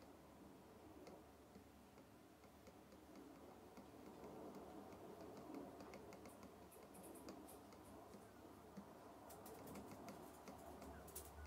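Faint ticks and taps of an Apple Pencil tip on an iPad Pro's glass screen during brush strokes, coming in clusters, more of them in the second half, over a low room hum.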